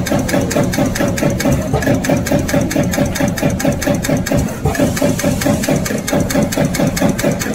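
CNC turret punch press punching sheet metal: a fast, even run of sharp strikes, several a second, over a steady machine hum.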